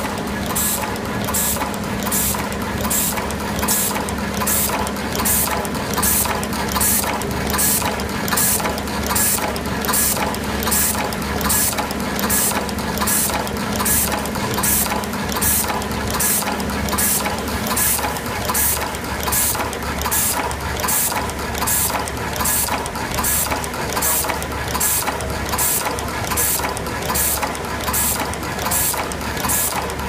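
Automatic wire cutting, stripping, twisting and crimping machine running through its cycle: short sharp hisses of air from its pneumatic cylinders repeat evenly, about three every two seconds, over mechanical clatter and a steady low hum. A second, higher hum stops a little past halfway.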